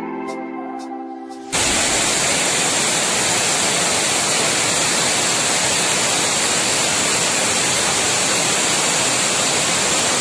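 Background music that cuts off abruptly about a second and a half in, giving way to the loud, steady rush of a waterfall.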